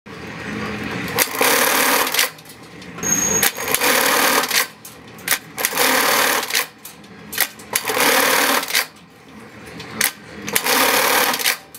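Juki LK-1850 industrial bartack sewing machine running through short tacking cycles. There are about five bursts of rapid stitching, each lasting about a second, with sharp clicks at the start and end of each burst and quieter pauses between them.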